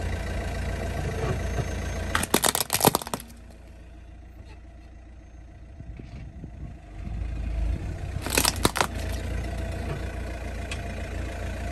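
Car engine running at idle while a tyre rolls over a toy model car. The toy cracks and crunches apart in a quick burst of snaps about two seconds in, and again about eight and a half seconds in.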